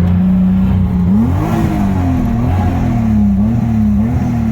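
Toyota Chaser engine idling steadily, then revved up and down in several short blips from about a second in. The revs are held up because the engine is running on a nearly flat battery with a failed alternator.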